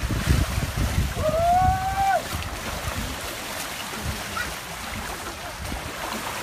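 Wind rumbling on the microphone over the wash of waves, easing after about two seconds. A single pitched call of about a second sounds partway through, rising slightly and then dropping away.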